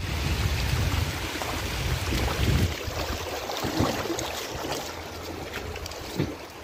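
Wind buffeting the microphone: a heavy, gusty rumble, loudest over the first two and a half seconds and then easing off.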